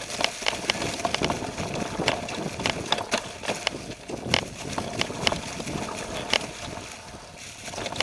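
Mountain bike rolling down a rough, leaf-covered trail: the tyres rustle through fallen leaves, with frequent sharp knocks and rattles as the bike jolts over the rough ground.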